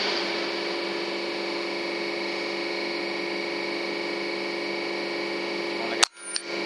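Steady machine-like hum made of several constant tones over a hiss. About six seconds in, a single sharp crack, after which the hum briefly drops out.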